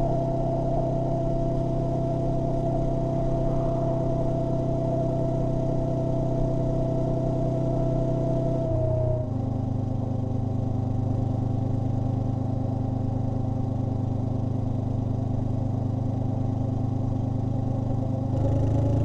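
Honda NX500's parallel-twin engine through its stock exhaust, running steadily under way; its note shifts about halfway through and again near the end. The stock pipe is very quiet.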